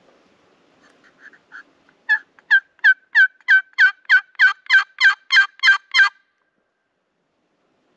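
Hen turkey yelps made on a turkey call: a few soft notes about a second in, then a loud run of about thirteen yelps, roughly three a second, stopping about six seconds in.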